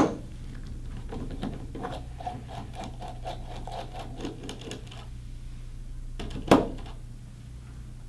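Ratchet socket wrench clicking as it works the 11mm nut loose inside the joystick's handle base: a run of quick, light ticks, then a single sharp knock about six and a half seconds in.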